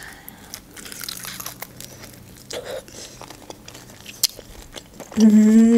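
Biting into a pan-fried khinkali dumpling with a crisp dough crust, then close-miked chewing with soft crunches and clicks. Near the end comes a hummed 'mmm' of about a second, louder than the eating.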